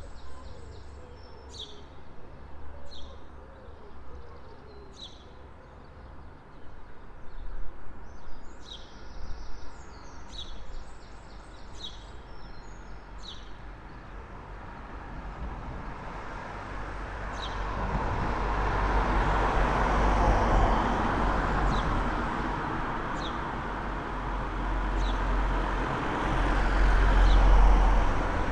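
Birds singing, with short sharp chirps repeating about once a second and a few fuller song phrases. About halfway in, road traffic comes up and passes as a rising tyre-and-engine rumble, swelling twice and loudest near the end.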